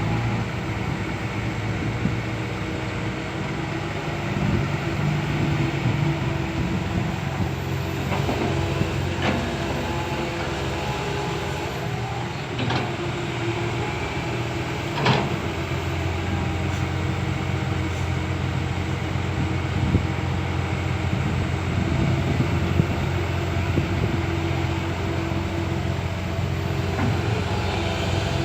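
Komatsu PC160LC hydraulic excavator's diesel engine running steadily while it works, with a few sharp metallic knocks.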